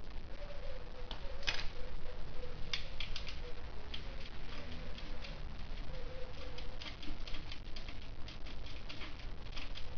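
Irregular light clicks and taps of hand work on a motorcycle's muffler fitting, several close together around three to four seconds in and again near the end.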